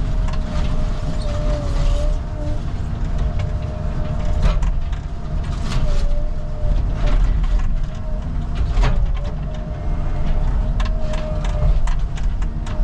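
Caterpillar 306 mini excavator's diesel engine running under load with a steady, wavering hydraulic whine, while the bucket breaks up mobile-home roof and wall debris with several sharp cracks and crunches of wood and sheet metal.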